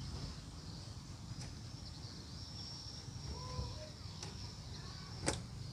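Outdoor ambience of a steady high-pitched insect drone over a low rumble. About three and a half seconds in there are a couple of faint short tones, and near the end there is one sharp click.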